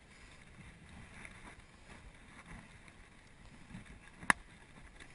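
Faint wind and handling noise on a wearable camera as a climber moves over a rope cargo net, with one sharp knock about four seconds in.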